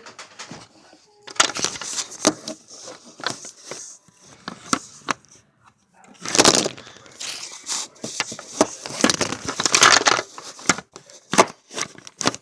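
Handling noise: rustling, crinkling and sharp clicks and knocks in irregular bursts, with short pauses in between.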